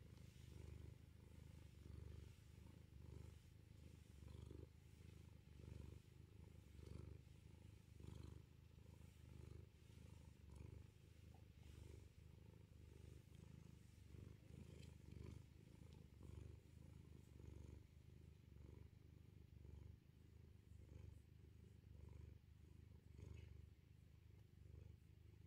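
Domestic cat purring while being stroked: a low, faint, continuous rumble that swells and fades about once a second.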